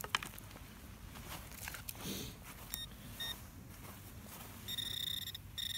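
Handheld metal-detecting pinpointer probing a dug plug of soil. It gives two short high beeps about three seconds in, then a steady high tone from about five seconds in, broken once briefly: it is sounding on a metal target in the plug.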